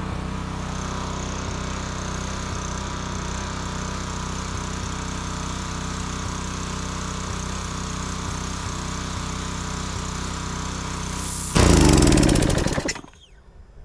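Small gas engine of a Craftsman pressure washer running steadily, a little slower than the owner would like. Near the end it briefly gets louder, then its pitch falls as it winds down and stops.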